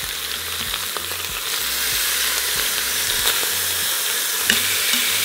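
Pork chunks searing in hot olive oil in an Instant Pot's stainless steel inner pot on high sauté: a steady sizzle that gets louder about two seconds in as the pieces are turned. Metal tongs click against the meat and pot a few times.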